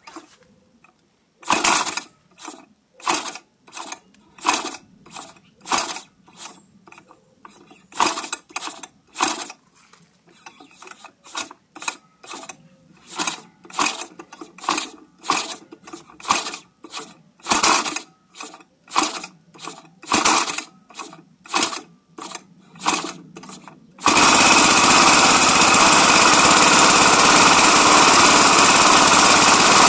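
57 cc four-stroke single-cylinder model-aircraft engine being hand-flipped by its wooden propeller. Each flip gives a short burst as the engine turns over, repeated about once or twice a second. About 24 seconds in it catches and runs steadily and loudly.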